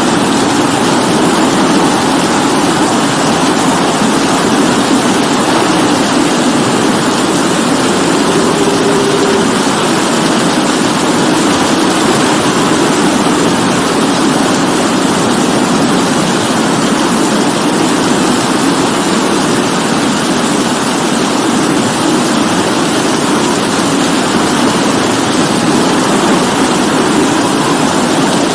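Steady heavy rain: a loud, even hiss with no breaks or changes.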